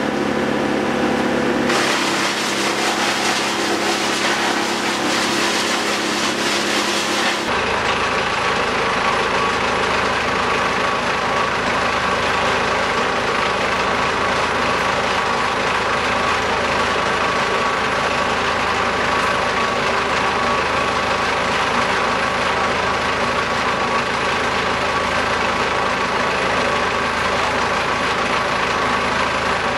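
A heavy engine running steadily. Its sound shifts about two seconds in, and again about seven seconds in, when a deeper low hum sets in.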